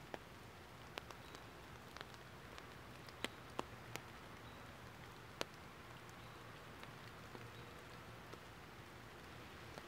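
Sparse water drops landing one at a time at irregular moments, about a dozen short sharp plinks over a faint steady hiss.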